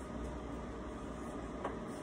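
Steady low room hum with a single faint click near the end.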